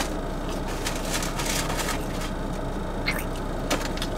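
Steady hum inside a car cabin, with short rustles and clicks of eating from a foam takeout box. A sharp click right at the start.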